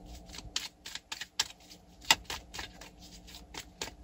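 A deck of tarot cards shuffled by hand: a run of light, irregular card clicks and snaps, the sharpest about two seconds in.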